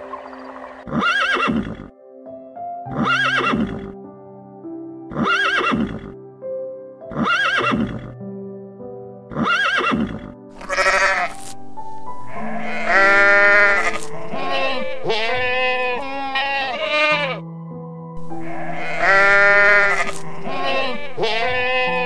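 Background music with an animal calling over it: short calls about every two seconds, then longer calls from about halfway through.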